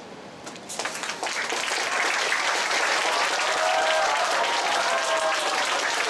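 Audience applause starts about a second in, swelling quickly into steady clapping from a large crowd, with a few voices calling out over it from about halfway.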